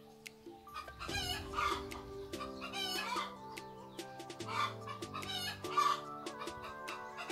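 Chickens calling in a series of short, wavering calls over background music with soft held chords.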